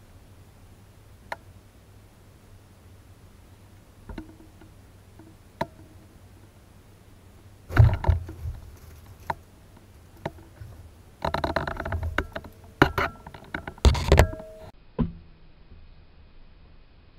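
Knocks, thumps and rattling scrapes on a close-up action camera as a boa constrictor strikes at a rat held in feeding tongs and the camera is jolted. A few faint clicks come first, then a loud burst about eight seconds in and a dense run of rattling knocks from about eleven to fourteen seconds.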